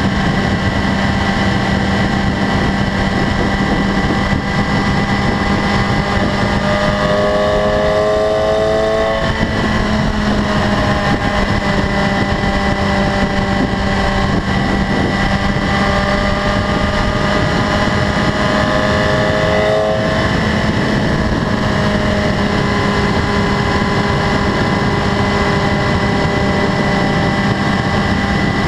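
2015 BMW S1000RR's inline-four engine running steadily at highway cruising speed under heavy wind rush. Twice a set of higher tones rises briefly over it.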